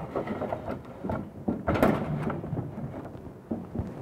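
Irregular knocks, thuds and scrapes of pipework and fittings being handled and tightened at a small electric water pump, with one louder knock about two seconds in. The pump itself is not yet running.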